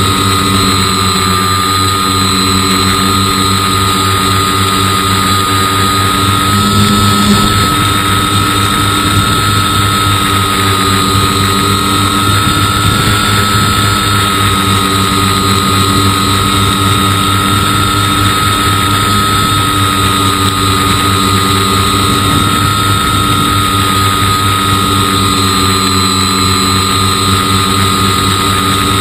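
Foam-board RC plane's motor and propeller running steadily in flight, a constant high whine over a low hum, heard from the onboard camera with air rushing past.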